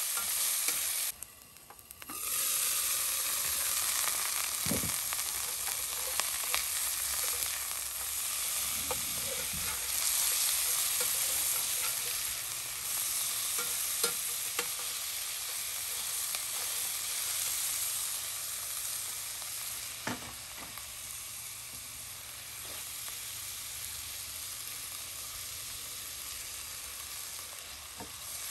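Ground-meat patties sizzling in oil in a cast-iron skillet, with now and then a sharp clink or scrape of a metal spoon against the pan as they are turned. The sizzle drops out briefly about a second in.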